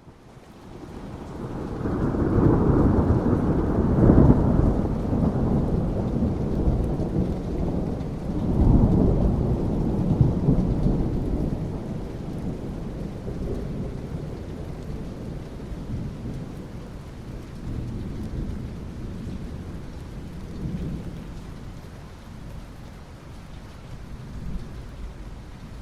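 Rolling thunder over steady rain: the deep rumble swells in over the first couple of seconds, peaks twice, then slowly dies away while the rain keeps falling.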